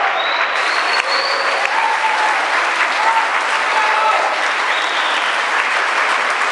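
Audience applauding steadily, with a few brief voices calling out over the clapping.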